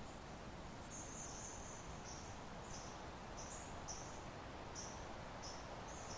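Soft, steady wind hiss with a run of short, high chirps about every two-thirds of a second, starting about a second in.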